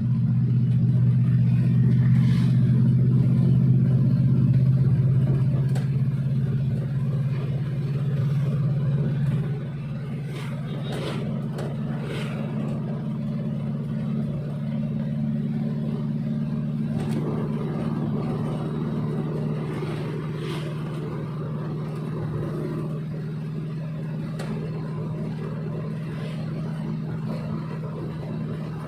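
Suzuki Espass van engine running steadily, louder for the first nine seconds or so, then dropping to a quieter, even hum for the rest.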